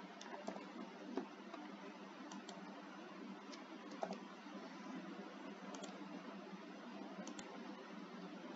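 Faint, scattered clicks from operating a computer, about ten of them, several in quick pairs, over a steady low hiss.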